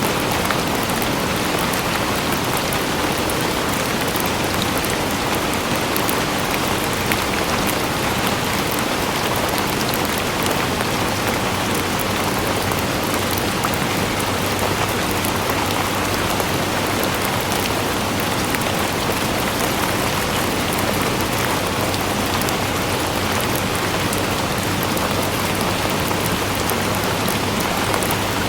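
Steady, dense rain falling on a surface: an even hiss of many drops with fine pattering up high, unchanging throughout.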